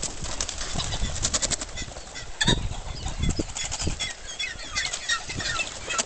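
A pen crowded with pheasants: wings fluttering and rustling, with short high chirping calls in the second half and one sharper click about two and a half seconds in.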